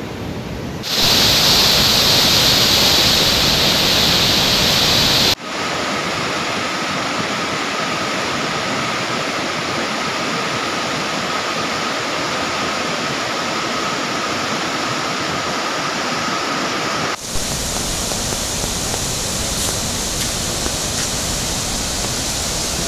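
Floodwater of a mountain river in spate after a cloudburst, rushing loudly over rocks and debris. The rushing noise shifts abruptly in tone and loudness about a second in, about five seconds in, and again near seventeen seconds.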